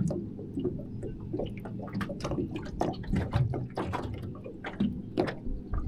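Small waves lapping and slapping against the hull of a small boat: an irregular run of quick splashes and knocks over a low rumble.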